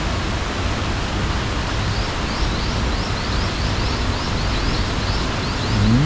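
Steady rush of flowing water. From about two seconds in, a faint run of short rising chirps repeats about three times a second.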